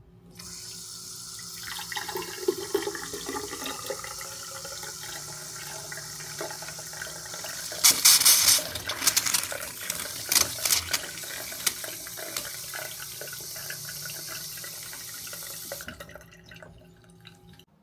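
Water running from a newly fitted basin mixer tap into the sink and down the drain, as the new trap and waste are tested. The flow has louder splashing spells about halfway through and stops near the end.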